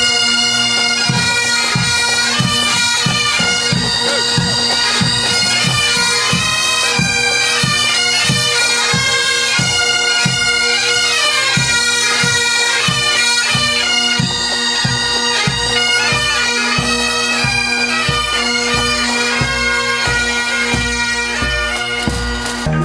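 Bagpipes playing a tune over steady, unchanging drones, with a drum keeping a regular beat of about two strokes a second.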